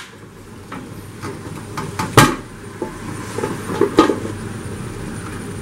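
Aluminium pressure cooker lid being twisted open and lifted off: a few metallic clunks and scrapes, the loudest about two seconds in and another about four seconds in.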